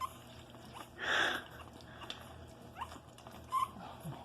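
Nursing puppies suckling at their mother, with a few short, faint, rising squeaks scattered through and a brief breathy rush of noise about a second in.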